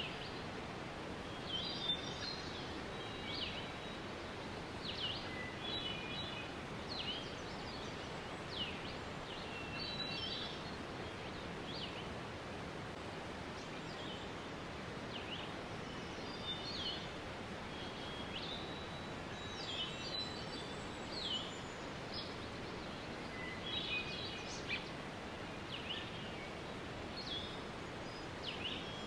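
Steady rush of a waterfall, with small birds chirping throughout in short high calls and quick falling notes.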